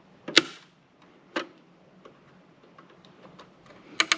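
Flathead screwdriver prying the plastic side panel of a router gateway, giving sharp plastic clicks and snaps as the panel's retaining clips give way: a loud click about half a second in, another a second later, and a quick cluster of clicks near the end.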